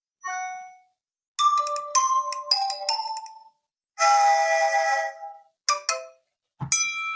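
iPhone SE preset ringtones played one after another as short previews: several brief chiming, mallet-like melodies, each stopping abruptly with a short silence before the next begins.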